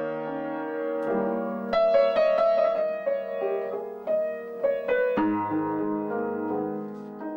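Upright piano being played: chords with melody notes over them, each note struck and left to ring and fade.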